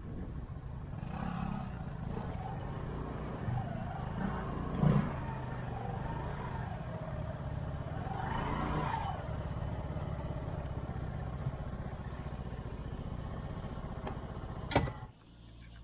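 A motor vehicle running on the road: a steady low rumble, with an engine tone that rises and falls a few times. It ends abruptly with a click near the end.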